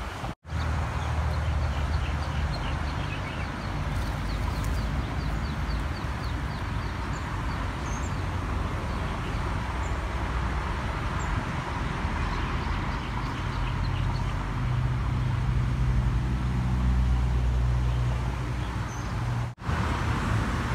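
Outdoor background noise with a steady low rumble, like wind and distant traffic, with faint high bird chirps scattered through the first half. The sound cuts out briefly twice, once just after the start and once near the end.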